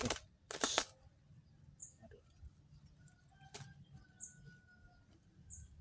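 A caught zebra dove (perkutut) flaps its wings in short bursts in the first second, with handling rustles. After that it is fairly quiet, with a few faint high chirps.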